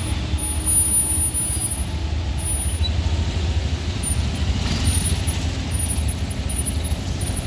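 Steady low rumble of heavy road vehicles, truck engines running on the road.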